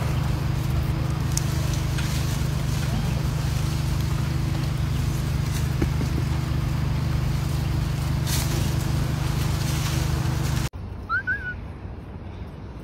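A steady low machine hum with a constant hiss cuts off suddenly near the end. After it comes quieter outdoor background with one short high squeak.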